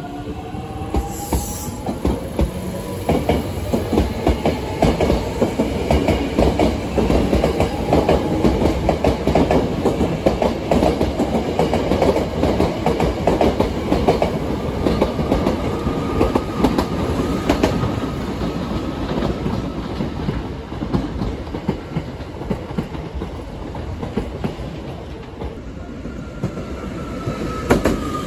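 A ten-car Hankyu Kobe Line electric train, an 8200-series set coupled to a 7000-series set, pulling out along the platform and gathering speed. The wheels clack over the rail joints, and the motors whine, rising in pitch as it accelerates.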